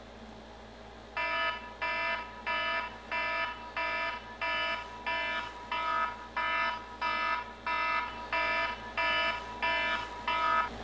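Smartphone alarm ringing: a pitched electronic tone repeating about twice a second, starting about a second in.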